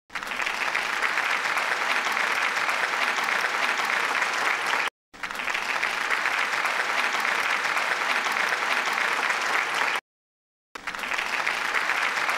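Steady applause, many hands clapping, that cuts out abruptly twice: for a moment about five seconds in, and for under a second near the ten-second mark.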